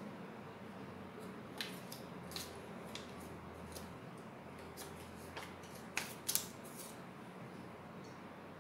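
Hands handling folded paper pieces and a plastic glue bottle: light rustling with scattered small sharp clicks, the loudest two close together a little past the middle.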